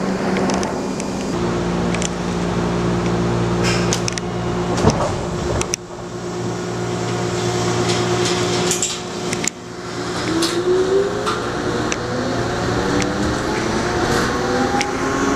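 Electric subway train running, heard from inside the car: a steady hum of several tones from the traction equipment, then from about ten seconds in a set of whining tones rising in pitch as the motors speed up. Scattered clicks and rattles sit over it.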